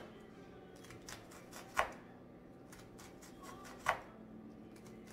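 Knife chopping an onion on a plastic cutting board: a few sharp strikes of the blade on the board, the two loudest about two seconds apart, with lighter cuts between.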